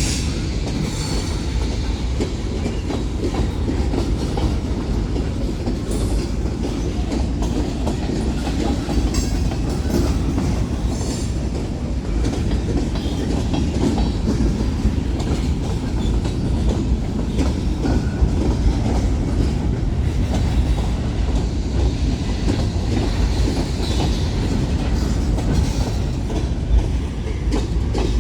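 Freight train cars rolling past: a steady low rumble with the clickety-clack of wheels over rail joints.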